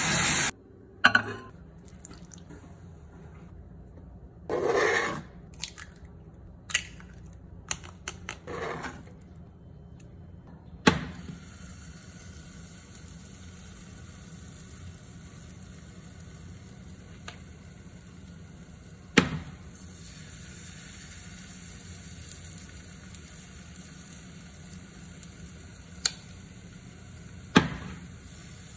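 Kitchen preparation sounds: a few short splashy pours of liquid and sharp clinks of bowls and utensils, spaced out over a steady low hiss.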